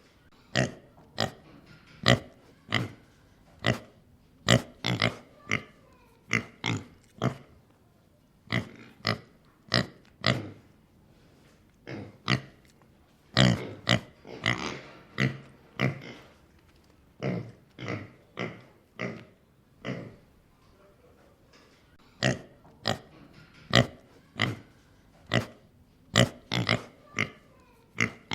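Domestic pig snorting and grunting in a long run of short, sharp snorts, some single and some in quick clusters, with brief pauses between.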